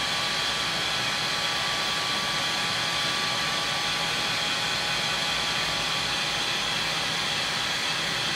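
Electric heat gun running steadily, blowing hot air to shrink heat-shrink tubing onto a graphite rod section: an even fan rush with a steady high whine.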